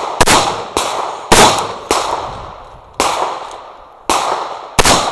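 Gunshots fired one after another at an uneven pace, seven in about five seconds, each trailing off with a long echo.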